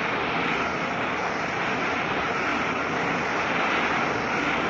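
Steady ballpark crowd murmur heard through an old radio broadcast recording, with even background hiss and no distinct events.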